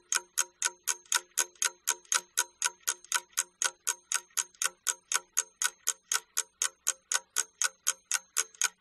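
Ticking clock sound effect, a steady fast tick about five times a second, marking the time allowed for a task.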